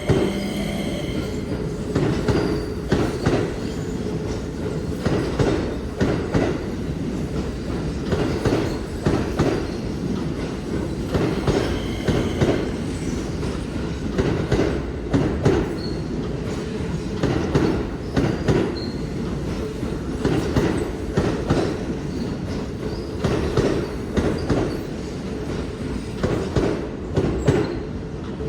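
Keio 8000 series electric train pulling out and its cars rolling past. There is a steady rumble, and the wheels clack over rail joints in repeated groups about every second, with some faint wheel squeal.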